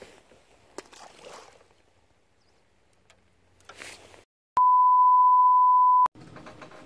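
A steady, single-pitch broadcast test-tone beep played with TV colour bars. It lasts about a second and a half and cuts off sharply.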